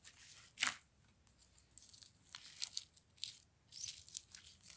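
Large purple slime being pushed and gathered together by hand on a glass tabletop, its thin stretched sheet tearing and folding with faint, scattered crackles.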